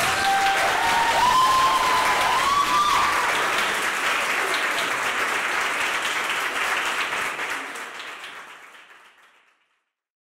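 Audience applauding, with a voice cheering over it in the first few seconds. The applause fades out over the last few seconds.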